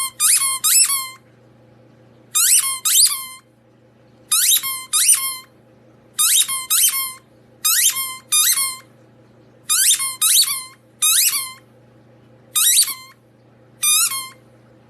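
Repeated high squeaks, each falling sharply in pitch, in quick pairs or triplets about every two seconds, over a faint steady hum.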